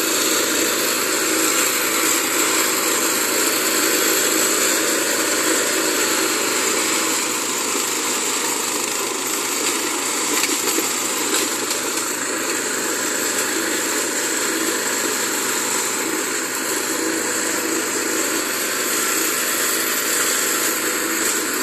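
Small engine of a T21 walk-behind brush cutter running steadily under load while its vertical rotating blades slash through weeds and undergrowth.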